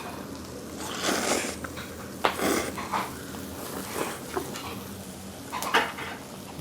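A person eating noodles: short slurping and chewing noises, with a sharp click of tableware about two seconds in.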